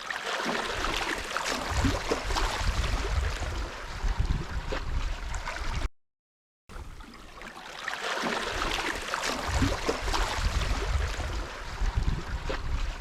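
Sea water washing and splashing, with wind rumbling on the microphone. It cuts out completely for under a second about six seconds in, then resumes.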